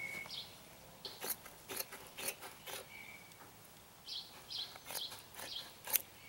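Scissors snipping through woven fiberglass cloth, a run of short crisp cuts with a pause in the middle. Birds chirp faintly in the background.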